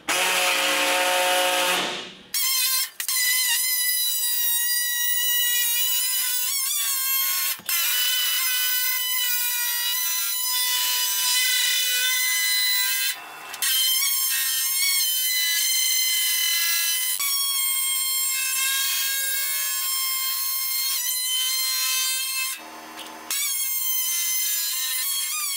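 Small pneumatic air saw cutting the lip of a 1973 Ford Bronco front fender, running with a loud, high whine, trimming the fender so a fiberglass fender flare fits. The whine stops briefly a few times as the cut is repositioned.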